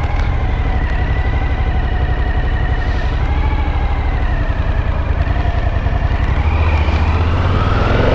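Motorcycle engine running as the bike rides along, picking up speed near the end.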